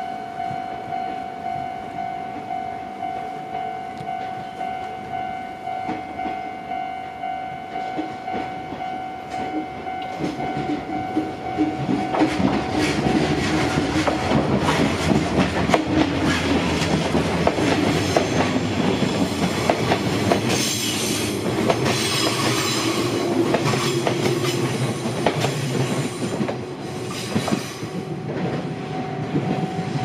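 Level-crossing warning bell ringing in a steady repeating pulse. About eleven seconds in, a train passes over the crossing with wheels clattering on the rails, drowning out the bell until near the end, when the bell is heard again.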